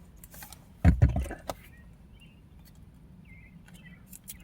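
A dull thump about a second in, followed by light clicks and rustling of objects being handled on a table.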